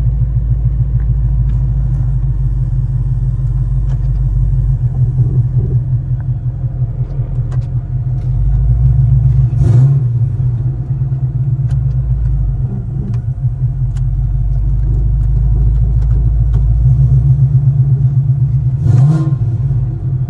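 Gen 3 Coyote 5.0 V8 running in a Fox-body Ford with a deep, pulsing rumble, briefly louder about ten seconds in and again near the end.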